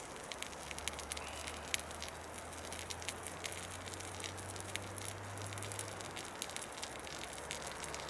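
Small open cooking fire crackling softly: scattered light pops and ticks over a steady hiss. A low steady hum sounds from about a second in and fades out a little past the middle.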